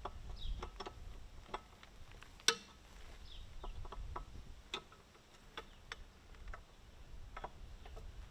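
Irregular sharp metallic clicks and taps from a hand wrench working the eccentric bolts on an Allis-Chalmers CA's power-shift rear wheel rim as they are loosened. The clicks come in short loose runs, with one sharper click about two and a half seconds in.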